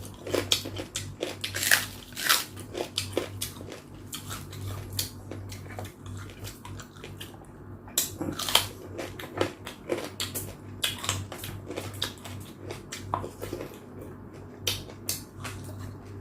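Close-up eating sounds: biting and chewing chicken from a bowl of tinola, with many short, irregular wet clicks and smacks.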